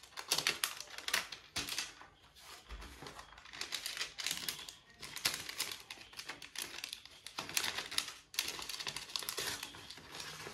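A postal envelope being cut open along its side: a quick, irregular run of crisp snips and clicks with paper rustling, in several spells with brief pauses.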